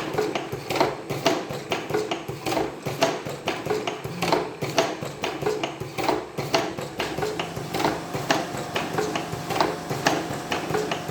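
Fully automatic cigarette rolling machine running, clacking in a steady rhythm of about two strokes a second.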